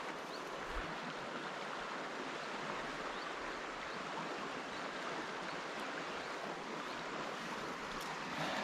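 Steady rushing of a small river's flowing water, an even noise with no change in level.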